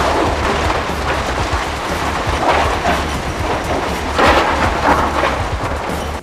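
Hurricane wind blowing hard across the microphone: a steady rushing noise with a low rumble, surging louder about two and a half seconds in and again around four seconds.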